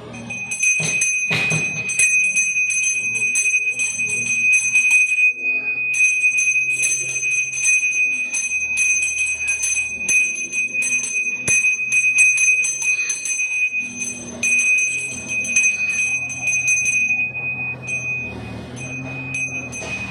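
Pooja hand bell rung rapidly and without pause as the aarti lamp is waved, a steady high ringing made of many quick strokes. It breaks off briefly about five seconds in and thins to scattered strokes near the end.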